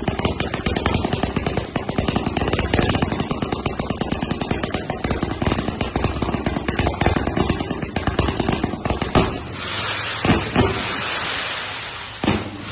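Ares 176-shot, 1-inch fireworks cake firing its shots in rapid succession, a dense stream of pops for about nine seconds. It then thins to three single louder bangs over a steady hiss as the cake finishes.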